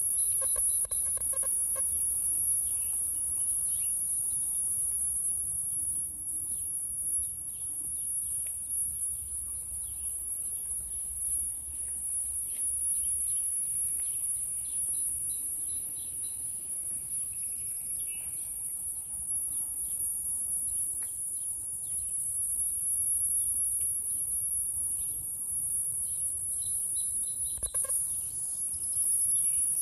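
A steady, high-pitched insect buzz from the trees, pulsing without a break.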